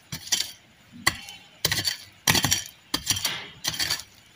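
A small hand pickaxe striking repeatedly into packed earth and broken brick rubble, about two sharp, clinking hits a second.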